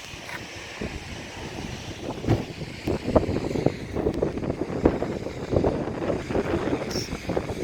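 Wind buffeting the microphone in uneven gusts, with irregular low thumps.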